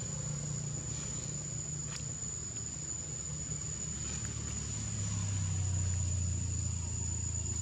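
Outdoor ambience: a steady low rumble, like a distant engine, under a continuous high-pitched insect whine, with a few faint ticks.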